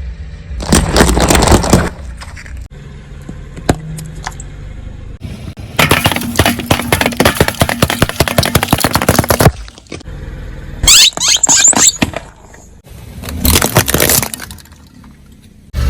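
Objects crunching, cracking and snapping as a car rolls over and crushes them, in several bursts: a short one near the start, a long run of dense crackling in the middle, then two shorter bursts near the end.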